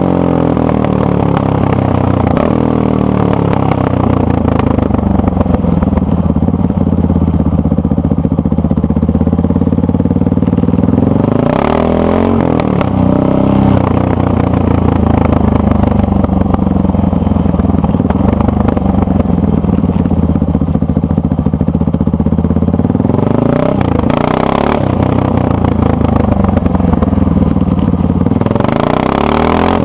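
Honda XR650R single-cylinder four-stroke engine with its stock exhaust, idling steadily. The throttle is blipped briefly about a third of the way in, twice more just past two-thirds, and once again near the end, with the revs rising and falling back to idle each time.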